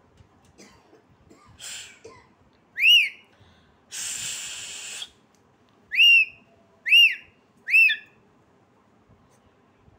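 Pet parakeet whistling: four short notes that each rise and fall in pitch, one about three seconds in and three in quick succession near the end. Between them comes a breathy hiss about a second long.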